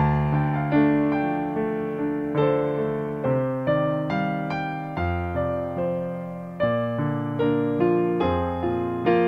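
Soft piano music: a slow melody of struck notes, each fading away, over held low chords.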